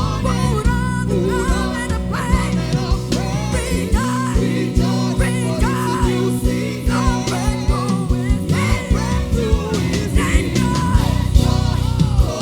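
Live gospel worship music: a worship team's voices singing and riffing freely over a band with a steady drum beat and sustained low bass notes.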